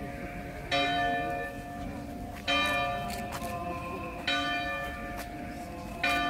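A single church bell tolling, four strikes about 1.8 seconds apart, each ringing on and fading before the next.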